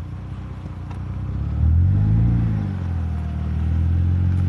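2004 Mercedes-Benz C320's 3.2-litre V6 engine running at low speed off-road, with a brief rise and fall in revs about a second and a half in, then steady running.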